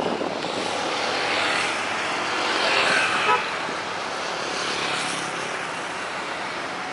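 Road traffic passing close by, with a short vehicle horn toot about three seconds in.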